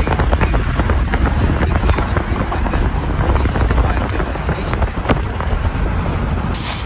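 Road and wind noise of a car driving across a bridge: a loud, steady rumble with wind buffeting the microphone and many sharp crackling clicks. A short burst of hiss comes in at the very end.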